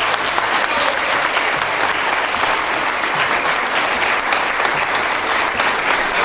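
Audience applauding, a steady dense clapping from a large crowd.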